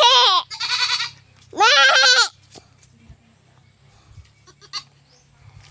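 A goat bleating three times in quick succession, the calls quavering in pitch.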